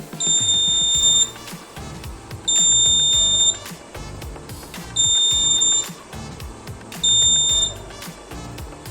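Arduino alarm buzzer beeping four times, each a steady high tone about a second long at uneven gaps. The buzzer is switched on by the ultrasonic sensor detecting an object within range. Background music with a beat plays underneath.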